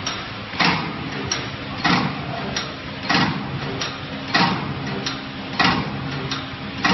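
Skywin 400 mm PLC tray-type cookie depositing machine running as it deposits dough onto a tray. It cycles with a short rush of sound about every second and a quarter and a lighter click between each pair, over a steady low motor hum.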